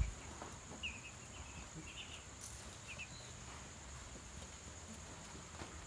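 Ducklings peeping faintly: a few small clusters of short, high peeps about a second apart. Underneath runs a steady high trill of night insects.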